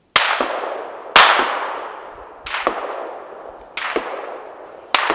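Five loud gunshots, about one every second and a quarter, each trailing off in a long echo.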